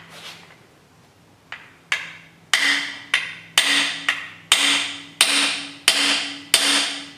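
Ball-peen hammer striking a socket held as a driver against a brass freeze plug, driving it into a Chrysler 440 cast-iron engine block. About ten sharp metallic blows, roughly two a second, start about one and a half seconds in and grow louder, each ringing briefly.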